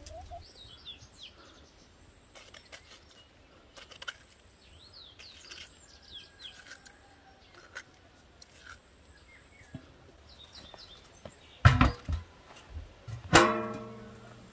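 Birds chirping and light clicks of knives cutting peaches, then near the end two loud metallic clanks of metal cookware, the second ringing out and fading over about a second.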